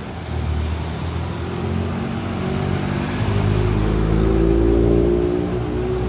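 Cars driving slowly past at close range: the engine hum of an SUV and then a pickup truck, its note climbing a little and growing louder in the second half as the pickup approaches.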